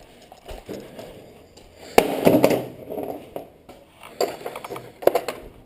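Metal hand tools clinking and clattering: a series of sharp knocks and clinks, with a busy cluster about two seconds in and more near the end.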